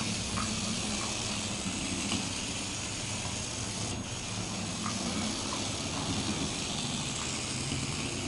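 Toy remote-control mouse's small motor whirring, with a brief break about four seconds in.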